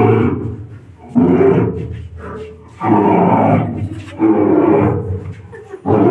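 Loud, growling roars repeating about every second and a half, each starting suddenly and fading away: a looped monster-roar sound effect in a haunted-house attraction.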